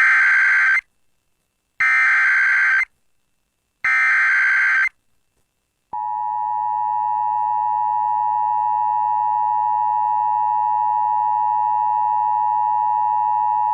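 Emergency Alert System activation for a severe thunderstorm warning. Three roughly one-second bursts of SAME header data tones come two seconds apart, then about six seconds in the steady two-tone EAS attention signal (853 and 960 Hz) begins and holds.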